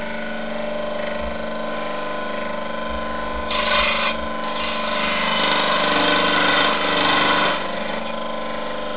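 Proxxon DSH scroll saw running steadily, its reciprocating blade making an even buzz. From about three and a half seconds in, for some four seconds, the sound grows louder and harsher as the blade cuts into 2 mm aluminium sheet, then settles back to the plain running sound.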